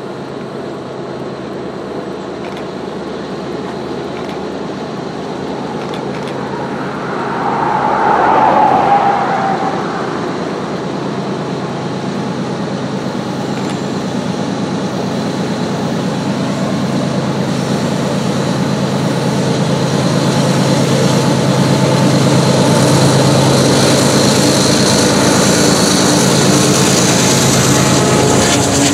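Freight train's diesel locomotives, two Canadian Pacific units leading, approaching and passing close under the vantage point, their engines running steadily and growing louder. A brief louder tone sounds about eight seconds in.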